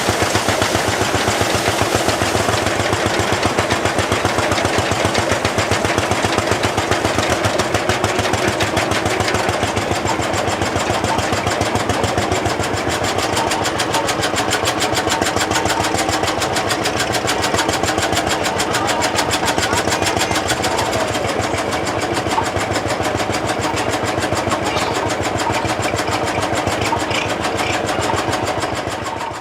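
Lanz Bulldog tractor's single-cylinder two-stroke hot-bulb engine running with a steady, rapid, even beat, along with a steady hum, fading out at the end.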